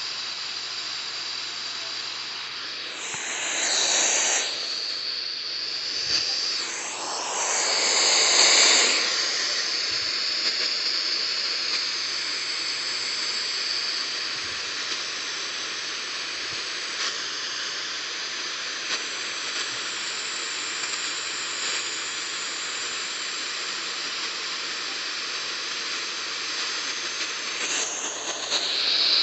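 Radio static: the steady hiss of a weak, barely received broadcast signal, swelling louder twice in the first ten seconds.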